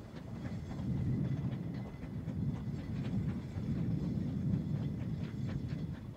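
Narrow-gauge steam locomotive working hard as it pulls a goods train away, its exhaust rumbling in swells. Sharp clicks and clanks come from the wagons' wheels and couplings as they roll past.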